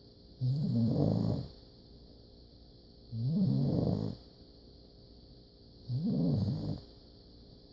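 A puppy snoring in its sleep: three snores, each about a second long, one every two to three seconds.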